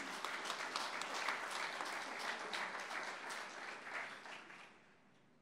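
Audience applauding, a dense patter of many hands clapping that dies away a little before the end.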